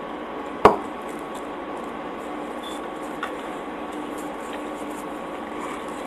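A single sharp knock of crockery set down on a table about half a second in, then a much lighter click about three seconds in, over a steady faint hum.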